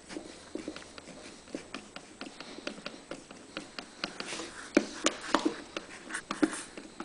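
Irregular light clicks, taps and rustles of hands working on small parts of the generator's fuel system, with a few sharper clicks about two-thirds of the way through.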